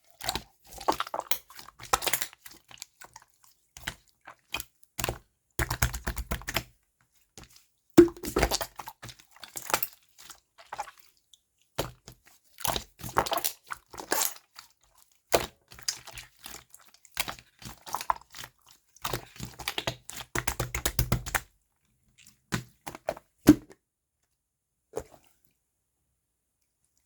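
Slime being worked by hand while blue and purple slime are mixed: bursts of sticky crackling and popping as it is pressed and folded, with short pauses between, and an occasional sharper thud.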